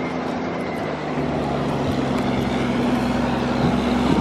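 A road vehicle's engine and road noise running steadily, with the engine note shifting about a second in.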